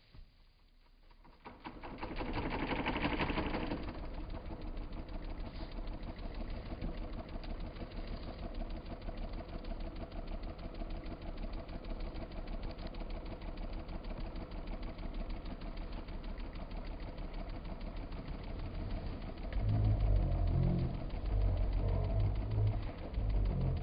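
Mondial Super Power 30 cm six-blade electric fan starting up about a second in, then running steadily with a motor hum and a fast, even rattle. From about twenty seconds in, a louder, uneven low rumble comes in over it.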